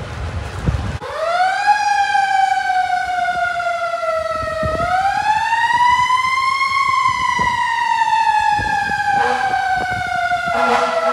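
Fire truck siren starting about a second in. It rises, slides slowly down, rises higher again and then slowly falls. A second, lower tone joins near the end.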